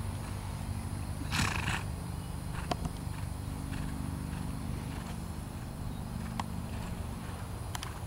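Horse cantering on sand, with one short breathy snort about a second and a half in and a few faint sharp clicks. A steady low rumble runs underneath.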